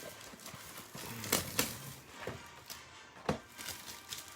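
Trading card pack being handled: a faint rustle, with two sharp clicks close together about one and a half seconds in and another a little after three seconds.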